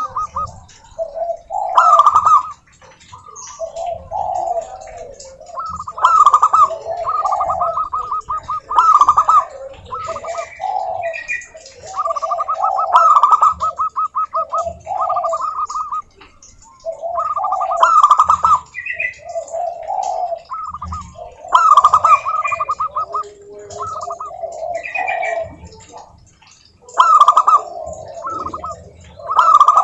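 Zebra doves cooing in overlapping phrases of rapid trilled notes, one phrase starting every second or two, answering each other, with a few short higher notes mixed in.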